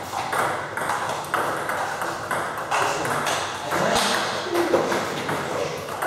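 Table tennis rally: the ball clicking off the bats and bouncing on the table in a quick, even series of sharp hits, about two a second.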